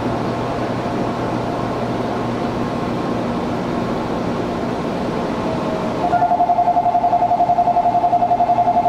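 Strong air conditioning and electrical equipment humming steadily inside a stationary Izuhakone Railway 1300 series electric train car. About six seconds in, a louder ringing tone starts, pulsing rapidly and evenly and going on: the departure bell before the train leaves.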